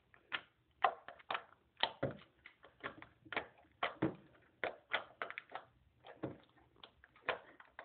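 Homemade stretchy slime being squished and pulled by hand, giving irregular sticky clicks and pops, two or three a second.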